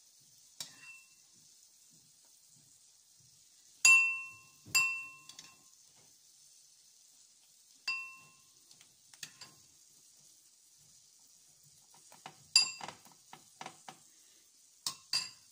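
Oil sizzling faintly in a frying pan under egg-coated bread for French toast, with a metal spoon clinking sharply against the dish four times, each clink ringing briefly. Near the end come quicker, lighter taps and scrapes of the spoon.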